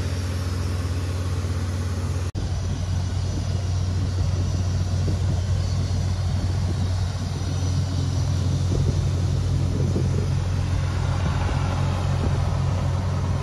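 Well-drilling rig's engine running steadily under load, a deep even drone, with a momentary dropout about two seconds in.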